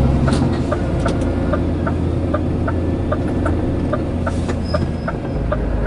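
Turn-signal indicator ticking steadily, about two and a half ticks a second, over the low, steady running of a Scania truck's diesel engine.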